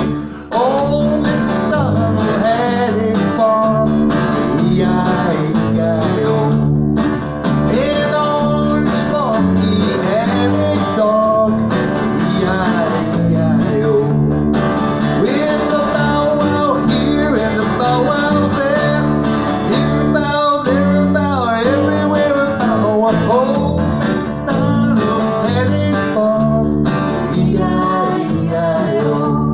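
Live country-blues instrumental break: an acoustic guitar strummed steadily under a five-string fretless electric bass playing a melody of sliding notes.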